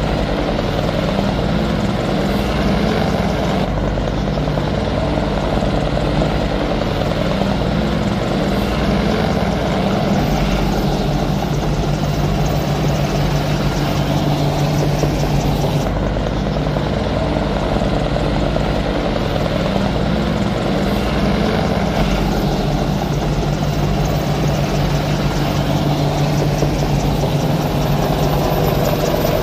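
Three AH-64 Apache attack helicopters flying low and coming in to land: a loud, steady rotor beat mixed with turbine engine noise, with no let-up.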